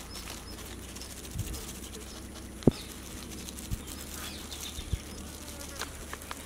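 Insects buzzing steadily, with a few sharp taps; the loudest tap comes about two and a half seconds in.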